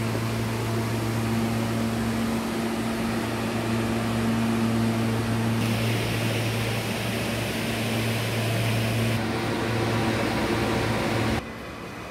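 R143 subway car standing in the station, its onboard equipment giving a steady low hum. The hum cuts off suddenly near the end, leaving quieter background noise.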